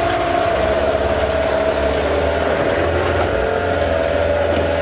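Mikatsu 9.9 outboard motor running steadily in gear in a test tank, its propeller churning the water. No exhaust is coming out through the propeller hub and the motor cannot develop power; the mechanics think it is apparently unable to push the exhaust out against the water.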